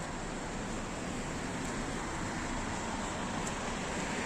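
Steady road and traffic noise from moving vehicles.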